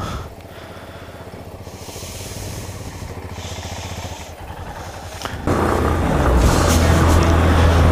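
Motorcycle engines on a gravel road: a low running sound as a second motorcycle rides up, then about five and a half seconds in a much louder, steady engine sound as the bike rides along the dirt road.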